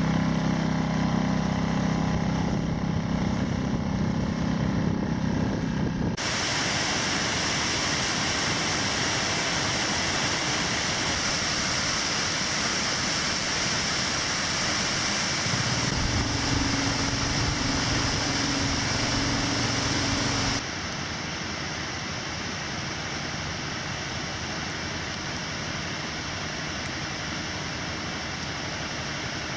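Small Yamaha outboard motor on an inflatable dinghy running with a steady low hum. About six seconds in it gives way to the loud, even rushing of waterfalls pouring down a rock face. A low hum returns under it for a few seconds, and the rushing continues a little quieter near the end.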